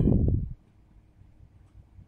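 A short spell of loud, low sound at the start, then a faint, steady hum from a desktop PC's fan running after power-on.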